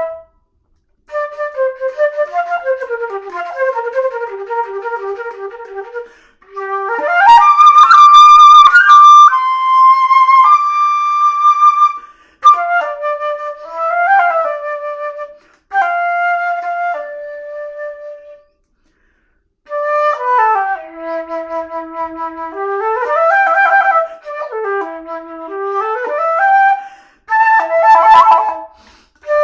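Solo flute playing quick runs of short notes that fall and rise in pitch, with a loud trilling passage about seven seconds in and a few longer held notes. Brief pauses separate the phrases.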